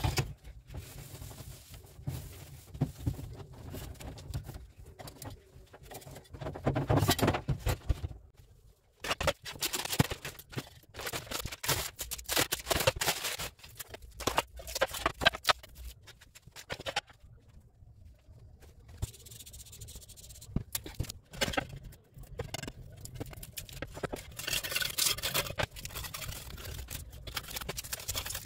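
Irregular scraping and knocking of a knife blade worked over a marble-effect panel on a granite countertop, coming in bursts with short pauses.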